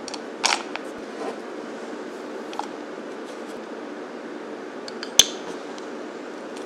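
Utensils clinking against a stainless steel mixing bowl as minced garlic and lemon juice go into butter: a clink about half a second in and a sharper, louder click about five seconds in, over a steady low hum.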